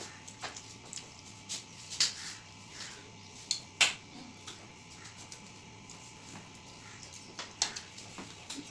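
Hands scooping rice and curry off metal plates: scattered sharp clinks and scrapes of fingers against the metal, the loudest a little under four seconds in.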